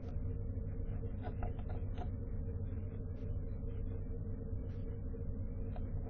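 Steady low electrical hum and hiss from a nest-box camera's microphone, with a few faint ticks between one and two seconds in and once more near the end.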